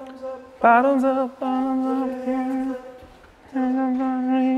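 Cordless drill/driver running in bursts while driving screws into the railing. Its steady whine rises briefly as it spins up about half a second in, runs for about two seconds, stops, and runs again near the end.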